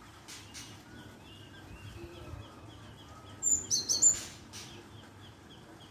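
Glatik birdsong lure call: a steady run of short, high chirps, about three a second, with a louder burst of sharper, higher notes about three and a half seconds in.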